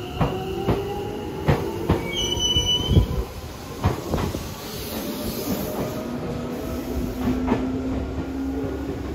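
Seibu New 2000 series electric train pulling away from a station platform: the traction motors hum, rising in pitch as it gains speed, and the wheels clack over rail joints. There is a brief high squeal about two seconds in, and a steady low hum in the second half.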